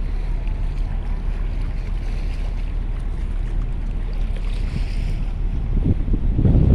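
Steady low rumble of ferry engines with water and wind noise; near the end a gust of wind buffets the microphone, getting louder.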